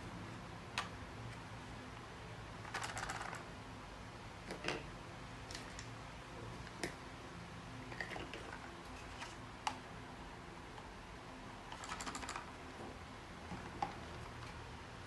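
Small hard objects being handled: scattered single clicks, with two short rattling clusters of rapid clicks about three seconds in and about twelve seconds in, over a faint steady low hum.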